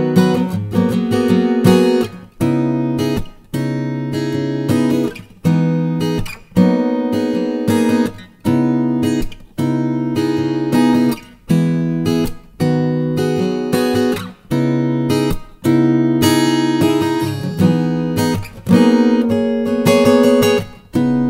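Tombstone 430 NAT acoustic guitar played solo: rhythmic strummed chords, each one stopped short and struck again every second or so.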